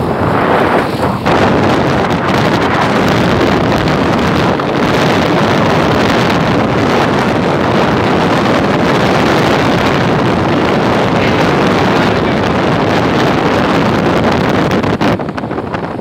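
Wind rushing hard over the microphone of a moving vehicle, a loud steady roar with the vehicle's running noise underneath. It eases off about a second before the end.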